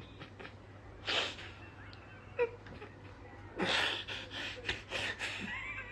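A man breathing out hard through the hand clamped over his mouth: two muffled exhales, about a second in and more strongly near the four-second mark, with faint small vocal noises between.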